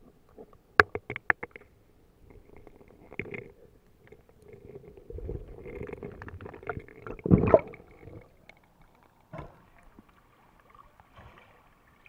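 Muffled underwater sound of a hand groping among submerged river rocks: a quick run of sharp knocks about a second in, then a churning rush of water that builds to a loud surge a little past the middle, and later one more knock.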